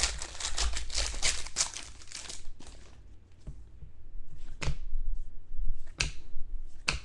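Foil wrapper of a trading-card pack crinkling and tearing for about two and a half seconds, followed by three sharp clicks as the cards are handled.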